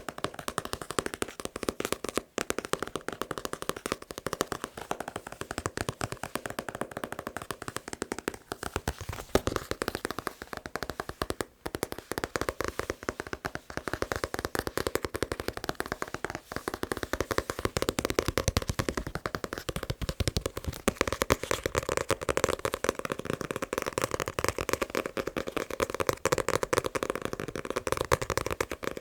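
Fingers tapping fast on a manga book, a rapid, continuous run of many taps a second.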